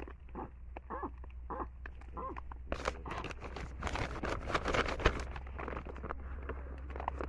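Baboons giving a few short calls, then a stretch of scuffling and rustling clicks in the middle as the troop moves about, over a steady low hum.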